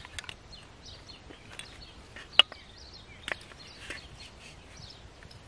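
Knife cutting sausages on a wooden board: a few sharp taps of the blade on the board, the loudest about two and a half seconds in. Small birds chirp in the background.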